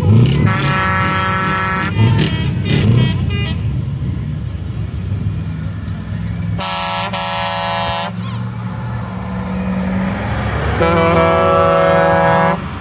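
Truck air horns sounding in several blasts: one about a second in, a few short toots after it, a louder one around seven seconds and a long one near the end, over the steady running of a heavy diesel truck engine.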